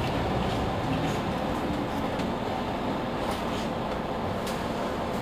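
Mercedes-Benz Citaro C2 city bus standing at a stop with its engine running at a steady idle.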